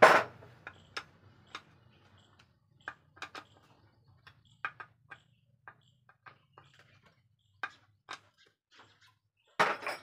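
Irregular metallic clicks and taps of a hand tool and small parts against a stripped-down two-stroke engine's aluminium crankcase during reassembly, with a louder clatter at the start and again near the end.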